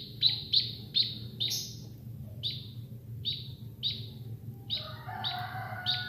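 A fledgling emprit kaji munia begging with short, high chirps, each sliding down in pitch, repeated about twice a second while it is hand-fed; it is hungry.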